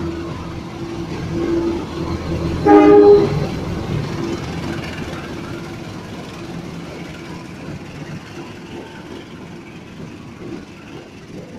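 GE U18C (CC 201) diesel-electric locomotive passing with its engine running, giving a short horn blast about three seconds in. Its freight wagons then roll by on the rails, the rumble fading away.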